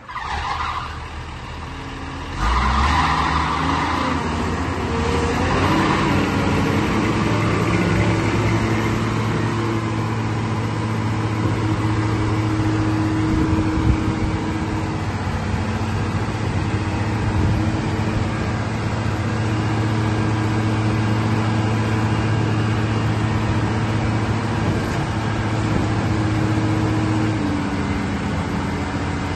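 Komatsu diesel engine of a Morooka MST2200 tracked dumper running, revved up about two seconds in and held steady at high revs while the hydraulic tip raises the skip; the revs drop a little near the end.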